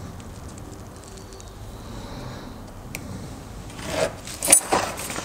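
Blade cutting a paper template along a steel rule, with scraping and paper rustling about four to five seconds in. Before that only faint handling sounds and a single tick.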